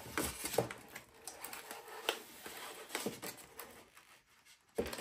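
Plastic wrapping crinkling and rustling against styrofoam packing, with irregular sharp clicks and taps, as hands work a wrapped model locomotive out of its foam box. A few louder crackles stand out about half a second, two seconds and three seconds in.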